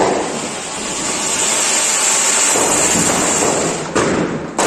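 Ground fountain firework (flower pot, anar) burning, spraying sparks with a loud, steady hiss. Two sharp jumps in level come near the end.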